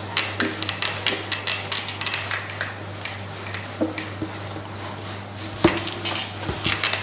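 A felt duster wiping a whiteboard in quick, repeated rubbing strokes, with one sharper knock a little before six seconds in.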